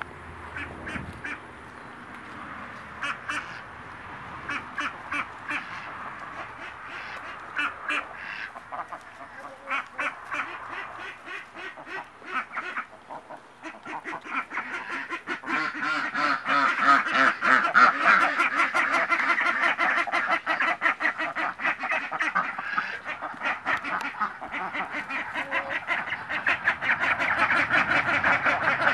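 A flock of Pekin ducks quacking: scattered quacks at first, then from about halfway a loud, rapid, continuous chorus of quacking.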